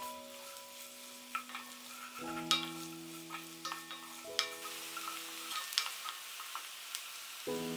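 Chopped onions sizzling in oil in an enamelled cast-iron pot, with a wooden spoon scraping and knocking irregularly against the pot as they are stirred. Soft background music with held notes plays underneath.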